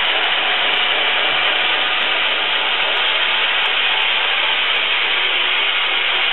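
Steady, loud rushing noise, even and unbroken.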